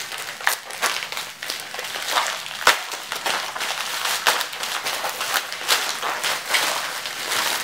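Crinkling and rustling of a padded plastic shipping envelope as it is handled and pulled open, with a single sharp click about two and a half seconds in.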